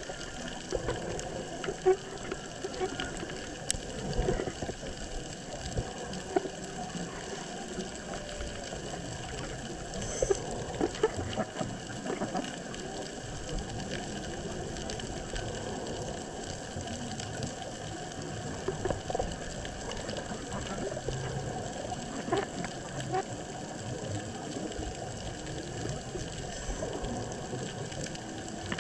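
Underwater ambience picked up by a dive camera in its housing: a steady hiss with a constant crackle of small clicks and pops, and a few louder knocks.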